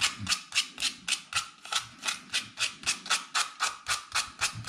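Rapid back-and-forth scraping by hand on the ends of a transformer's winding wires, about five even strokes a second.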